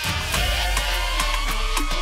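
Electronic dance music mixed by two DJs: a heavy deep bass comes in right at the start, under a tone that rises slowly for about a second and a half, over a steady drum beat.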